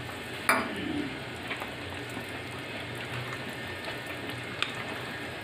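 Plastic spoon stirring a wet flour-and-jaggery batter in a glass bowl: soft, wet squelching, with a sharp tap against the bowl about half a second in and a lighter one near the end.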